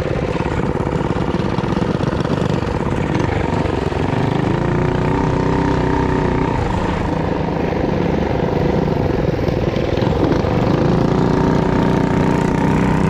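Mini bike's single-cylinder small engine running on a dirt trail. Its pitch climbs and holds as it is throttled up about four seconds in and again about ten seconds in, easing off in between.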